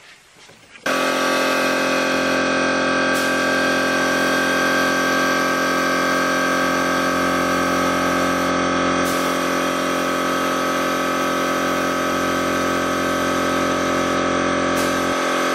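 Air compressor motor running steadily, supplying air to a paint spray gun. It starts suddenly about a second in and holds a constant hum.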